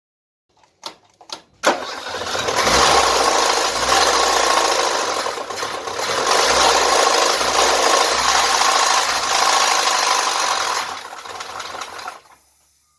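Mazda Rustler engine started after a few clicks, then running loudly for about ten seconds before dying away near the end.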